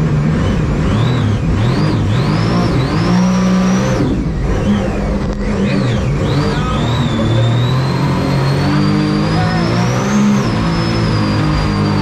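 Supercharged mini jet boat running at speed. The engine and supercharger whine rise and fall several times in the first few seconds as the throttle changes, then climb more steadily. Water rushes and sprays from the jet under it all.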